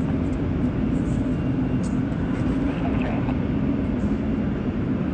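Steady low rumble of jet aircraft engines, with a held droning tone in it.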